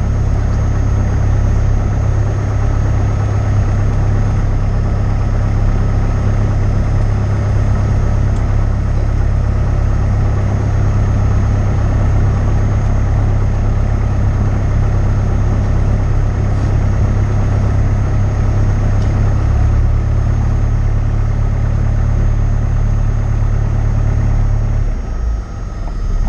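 Cessna 172's piston engine running steadily at low power, a loud, even drone. Near the end its deep hum drops away as the level starts to fall.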